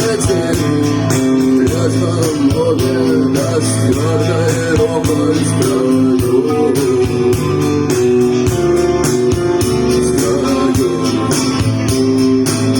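Instrumental song passage: a melodic guitar line over bass and a steady beat.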